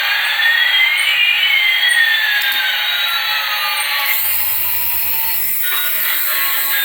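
Electronic whining tones, one sliding up in pitch while another slides down, then an abrupt change about four seconds in to short beeping tones.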